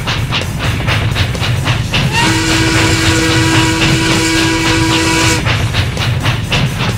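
Steam locomotive sound effect: the engine chuffs in a fast, even rhythm, and its steam whistle blows one steady multi-tone blast for about three seconds, starting about two seconds in.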